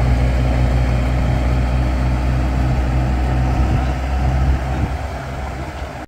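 Telehandler's diesel engine running steadily at low revs, a deep, even hum that grows somewhat quieter over the last two seconds.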